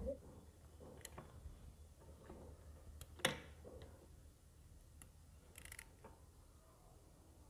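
Faint, scattered metallic clicks and taps of hand tools, a socket wrench, working on a motorcycle engine, the sharpest one about three seconds in and a short cluster of ticks near the end.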